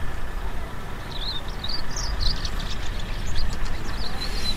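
Outdoor ambience: a steady low rumble, with small birds chirping from about a second in.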